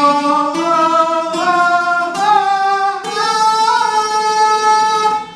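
A man singing a vocalise exercise, stepping up a scale one held note at a time, each note doubled by a pluck on an oud. He climbs high into his upper range and holds the top note for about two seconds before it fades out near the end.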